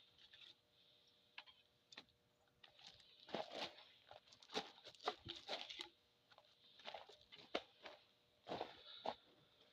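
Spokeshave shaving bark off a cedar log: a faint series of short, irregular scraping strokes, several coming close together in the middle and again near the end.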